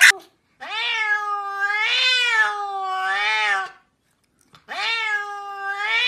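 Domestic cat meowing in long, drawn-out calls that rise and fall in pitch. The first lasts about three seconds, and after a short pause a second starts about four and a half seconds in.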